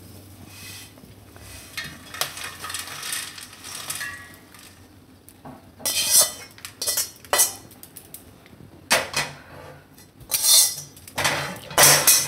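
Dry-roasted whole spices being scraped and tipped out of a steel wok onto a stainless steel plate: a metal utensil clinks and scrapes on the metal. Soft rustling and scraping at first, then sharp, repeated clinks and scrapes from about six seconds in.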